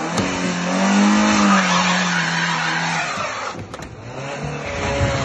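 A Fiat Punto hatchback is driven hard against a metal gate. The engine revs rise and fall while the tyres skid and squeal on the tarmac, and a couple of sharp knocks come about three and a half seconds in.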